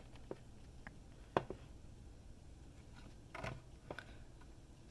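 Faint handling of a Blu-ray steelbook as its plastic slipcover is slid off: a few light clicks and taps of plastic and metal, the sharpest about a second and a half in and a small cluster about three and a half seconds in.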